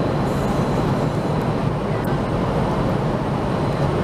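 Steady engine and airflow noise inside an airliner cabin in flight.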